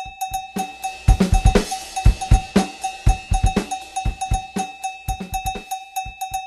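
Music: a drum-kit beat with a denser fill of snare and cymbal hits about a second in, over a short high electronic beep repeating in time with the beat.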